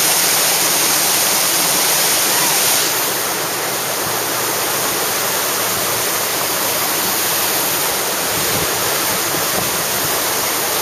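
Whitewater rapid rushing over a river drop: a steady, loud wash of churning water that eases slightly about three seconds in.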